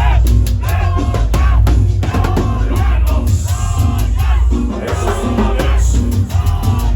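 Loud Latin dance music, salsa-style, with heavy bass and a steady drum beat under a melody.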